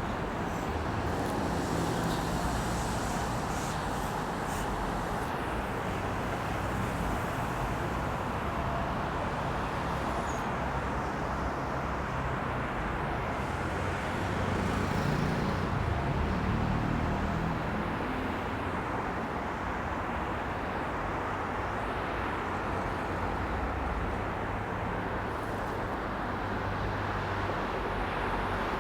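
Steady road traffic running past, with a heavier vehicle rumbling by about halfway through.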